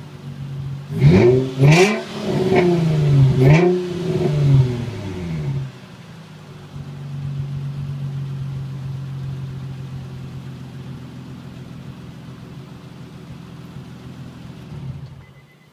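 2003 Nissan 350Z's VQ35 V6 running through a custom exhaust: a few quick revs in the first five seconds or so, then a steady idle. The engine cuts off near the end.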